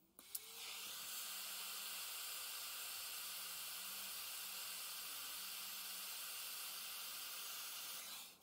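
Hand-held gas torch burning with a steady hiss while heating a copper pipe joint for brazing; the hiss comes on just after the start and cuts off abruptly near the end.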